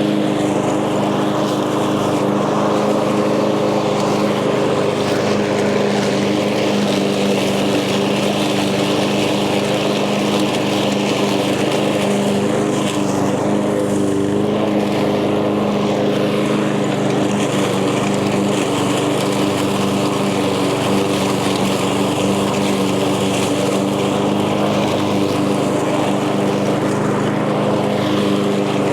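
Echo gas lawn mower engine running steadily at speed.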